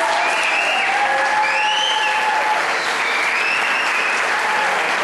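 Wedding guests applauding steadily for a couple just pronounced married, with a few voices calling out over the clapping.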